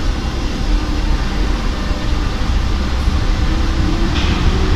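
Paris Métro MF77 train pulling away from the platform and gathering speed: a steady low rumble of wheels and traction under the station vault.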